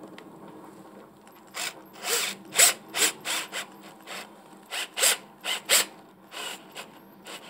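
Cordless drill driving screw-in studs into a rubber tyre's tread blocks in short trigger bursts: about a dozen brief whirs, starting about a second and a half in and coming every half second or so.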